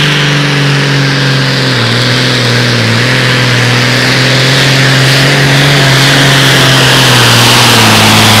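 Minneapolis-Moline hot farm pulling tractor's diesel engine running flat out under load as it drags the weight-transfer sled, black smoke at the stack. The engine holds a steady pitch that sags a little about two seconds in and again near the end as the sled bears down.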